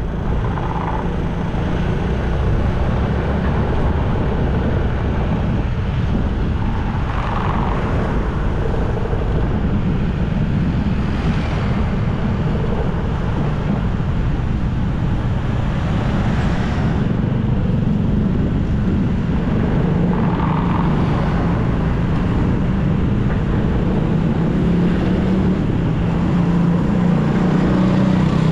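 Steady rumble of road traffic and wind heard while riding a bike along a town street, with a few vehicles swelling past.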